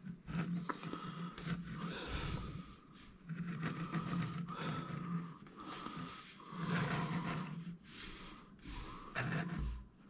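A plastic Rubik's cube being handled and set on its plastic stand, with light clicks, taps and rubbing. An on-off low hum runs underneath.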